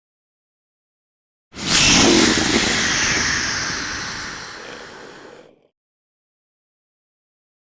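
One Manda kaiju sound effect: a single harsh, noisy cry that starts suddenly about one and a half seconds in, is loudest at once and fades away over about four seconds.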